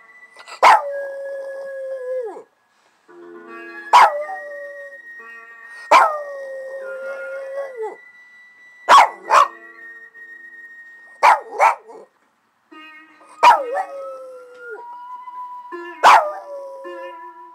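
A Boston terrier howling along to Far Eastern music. The music has sharp struck notes every two seconds or so, and held and sliding tones run between them.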